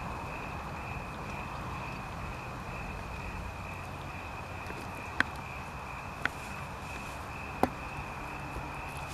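Crickets trilling steadily in the night brush over a low hiss, with three short, sharp snaps a little past the middle.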